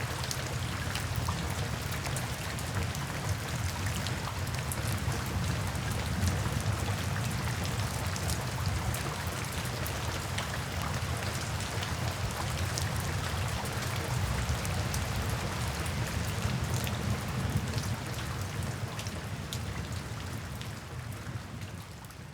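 Steady rain falling, with many separate drops ticking sharply over the hiss of the downpour and a steady low rumble beneath. It fades down over the last few seconds.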